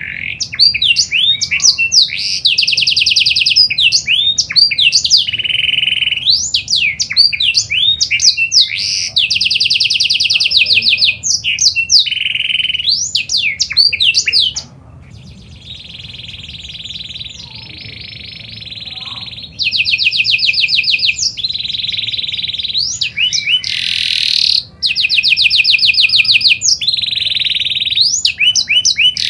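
Pied ('panda') domestic canary singing a long, continuous song of fast trills, quick sweeping notes and rolling tours. About halfway through the song drops to a softer, steadier passage for a few seconds, then breaks back into loud trills.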